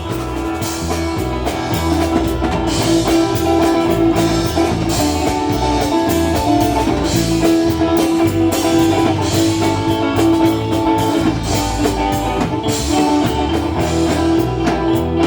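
A band playing an instrumental break between sung verses: plucked and strummed strings over a drum kit keeping a steady beat.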